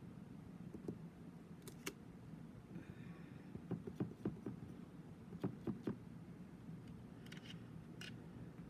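Light taps and clicks of stamping supplies handled on a craft table, with a cluster of quick taps in the middle, over a steady low hum.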